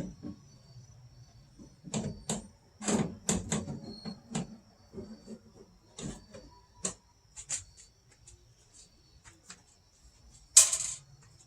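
Irregular clicks, knocks and clunks of hand work on a car door while its door glass and window track are fitted, with one louder bang about ten and a half seconds in.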